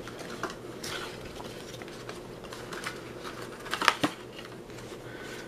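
Handling of a small paperboard box and its inner insert as it is slid out: light rustling and scraping, with a couple of sharp clicks about four seconds in.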